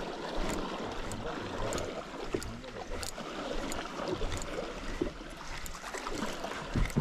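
Gentle water lapping against the hull of a small boat drifting on calm sea, with light scattered ticks.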